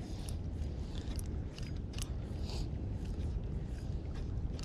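Steady low wind rumble on the microphone, with irregular light clicks and crunches about three or four times a second.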